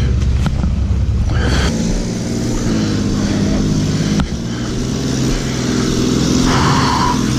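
Vehicle engine idling, then revving up about two seconds in as the vehicle drives off. It keeps running at higher revs, with a brief dip about four seconds in.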